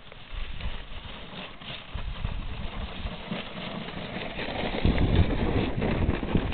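Wind buffeting the camera microphone in irregular low gusts that grow stronger near the end, with faint crackling.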